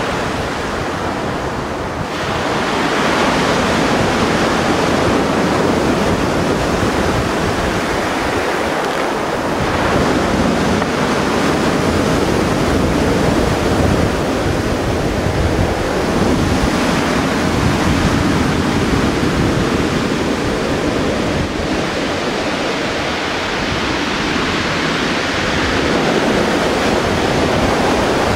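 Sea surf: waves breaking and washing onto the shore in a continuous rush that swells every few seconds, with wind buffeting the microphone.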